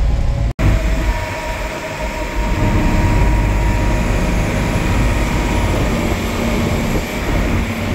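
Heavy off-road tour vehicle driving up a gravel track of volcanic sand: a steady low engine rumble with tyre and road noise, heard from on board. The sound drops out for an instant about half a second in.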